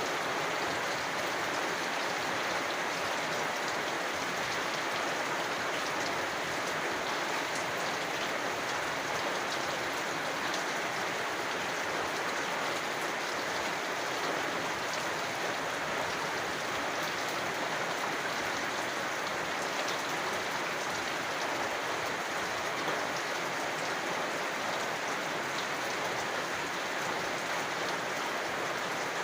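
Steady rain falling, with individual drops heard as faint ticks through an even hiss.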